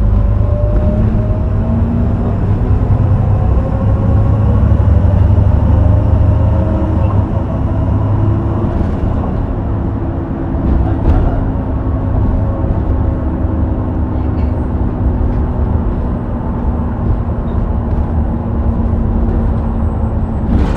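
Heuliez GX327 city bus's diesel engine running under load through its ZF 5HP 504C automatic gearbox, with a deep rumble. The engine note rises over the first couple of seconds, then holds fairly level, easing back around ten seconds in, with a brief knock shortly after.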